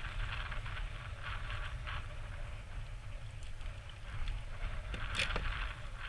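Wind rumbling steadily on the camera microphone, with irregular rustling from gloved hands handling the gull and a sharp click about five seconds in.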